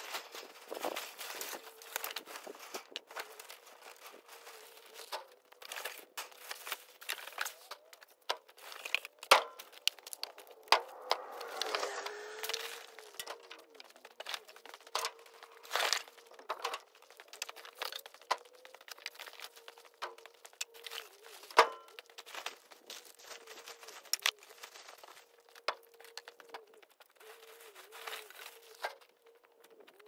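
Construction debris being pulled from a pile and thrown into a dump trailer: plastic sheeting and foam crinkling and rustling, with sharp knocks and clatters as pieces land. The loudest hits come about nine, sixteen and twenty-one seconds in. A faint steady hum runs underneath.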